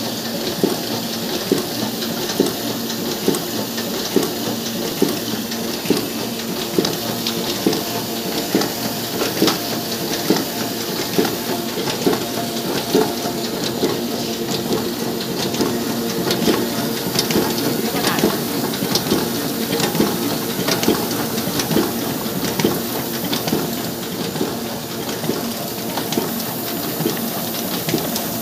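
Sheet-fed offset printing machine running, feeding and printing non-woven bag sheets: a steady mechanical clatter and hum with a regular knock a little faster than once a second.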